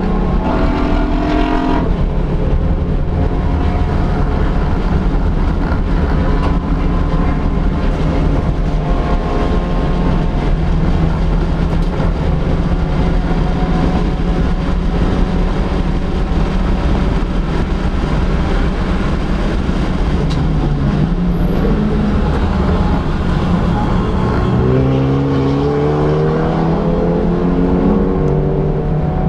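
Honda Fit race car's four-cylinder engine heard from on board, running hard at high revs under racing, with wind and road noise. About twenty seconds in the revs drop and waver, as when braking and downshifting, then climb steadily through the gear near the end.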